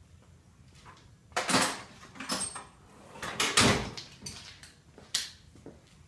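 Two short sliding, scraping noises, about a second and a half and three and a half seconds in, with a few lighter knocks between: something being moved or handled.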